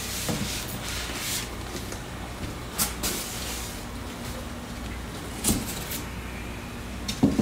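A styrofoam fish-shipping box being handled: a few short knocks and scrapes as its lid is lifted off and set aside, over a steady low hum.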